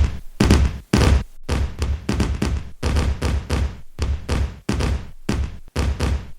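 Firecrackers going off in a rapid, unbroken barrage: several sharp bangs a second, each with a deep boom under it.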